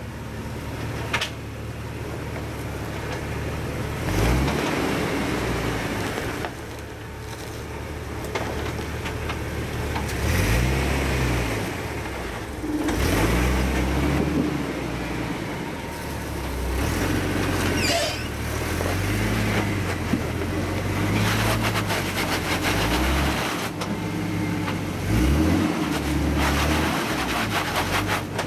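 A Jeep Wrangler's engine revs up and drops back again and again as the Jeep crawls over a boulder, its revs rising and falling several times.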